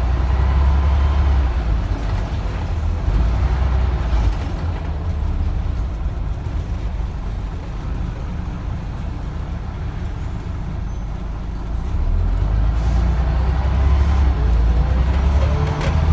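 Scania N94 bus's five-cylinder diesel engine heard from inside the passenger saloon, working hard, easing off for several seconds in the middle, then pulling strongly again from about twelve seconds in, its pitch rising near the end.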